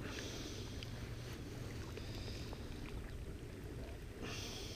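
Steady wind rumble on the microphone over open water, with two short spells of water splashing, one at the start and one about four seconds in, as a small striped bass is held at the surface and unhooked.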